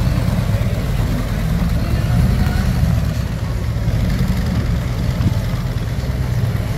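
Harley-Davidson Ultra Classic V-twin engine running at low speed with a steady low rumble as the motorcycle rolls slowly.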